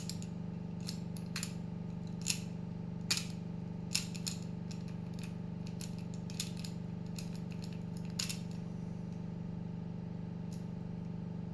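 Light metallic clicks and scrapes of a rake pick and tension tool working in the keyway of an Abus disc padlock, coming irregularly, about a dozen in all. A steady low hum sits under them.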